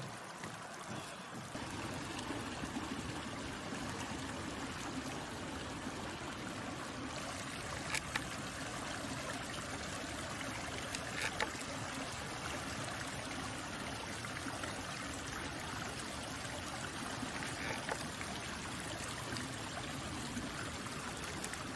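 Small shallow mountain stream trickling over rocks and through tussock, a steady rush of running water, with a couple of faint taps partway through.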